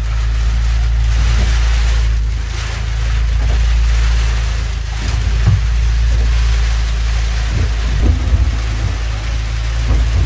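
Storm rain and wind beating on a small boat's pilothouse: a loud rushing that swells and eases, over a constant low hum, with a few short knocks from about halfway on.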